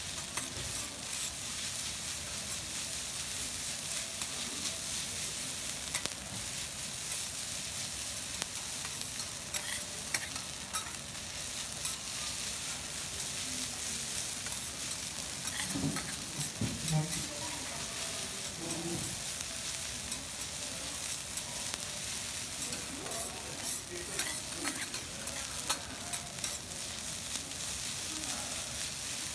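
Garlic rice with egg sizzling on a steel teppanyaki griddle as two metal spatulas chop, scrape and toss it, the blades clicking and scraping against the steel many times over a steady hiss.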